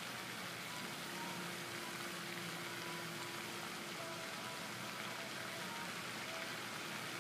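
Steady splashing hiss of a pond fountain's spray falling back onto the water, with a few faint thin tones over it.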